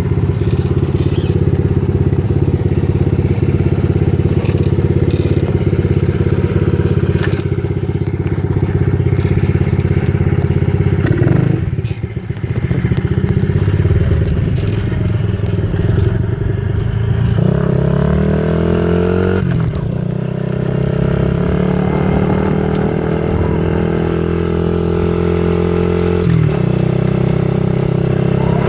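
90 cc dirt bike engine with a newly fitted exhaust, running and being revved. It runs steadily for about eleven seconds and drops briefly around twelve seconds. It climbs in pitch around seventeen to nineteen seconds and holds higher, then dips near the end before rising again.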